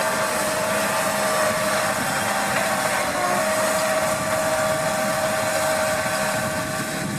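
New Holland T7040 tractor running steadily while pulling a seed drill, its engine and driveline giving a constant hum with a steady high whine that dips briefly about three seconds in.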